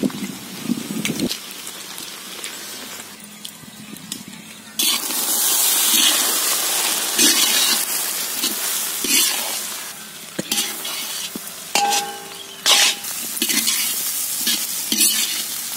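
Egg and grated carrot frying in a large black kadai, sizzling loudly while a steel spatula stirs, scrapes and clinks against the pan. The sizzle jumps up suddenly about five seconds in, as the raw egg is stirred through the hot oil.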